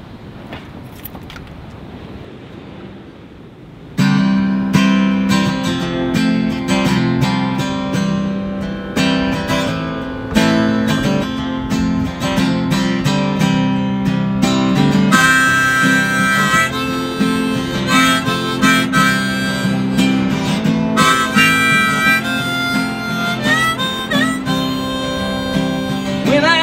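Acoustic guitar strumming with a harmonica in a neck rack, starting suddenly about four seconds in after faint steady background noise. In the second half the harmonica plays held melody notes over the strummed chords, as the instrumental intro to the song.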